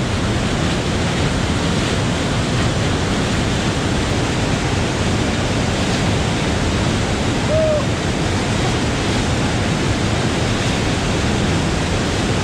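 Waterfall gushing down a rock face: a loud, steady rush of falling water.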